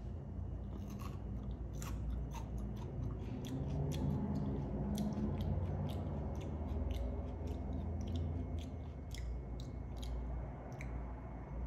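A person chewing a small piece of raw green chili pepper: irregular small crunches and wet mouth clicks, stopping shortly before the end.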